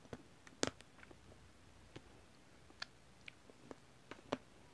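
Mouth sounds of eating: scattered wet mouth clicks and soft chewing, with two sharper clicks about half a second in and near the end.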